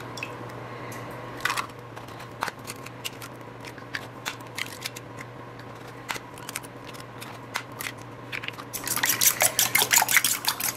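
Raw eggs being cracked and dropped into a bowl, with scattered sharp taps of shell and small wet plops. About nine seconds in, a fork starts whisking them, a rapid clicking against the bowl.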